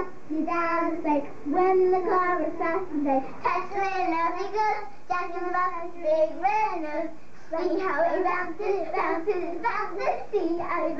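Young girls singing a song, with a few short breaks between phrases.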